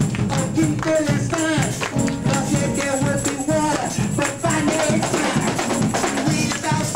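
Lively gospel music: a man singing into a handheld microphone over tambourines and hand clapping.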